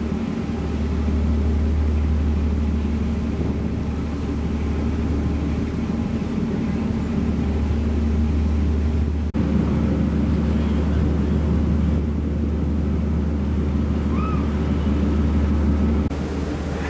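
Ferry's engines running with a steady low hum, heard on board; the hum breaks off and resumes about nine seconds in, and drops slightly near the end.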